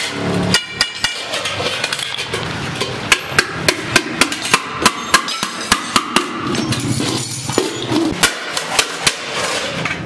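Hammer blows on a stainless steel milk can, a steady run of sharp ringing metallic strikes about three a second.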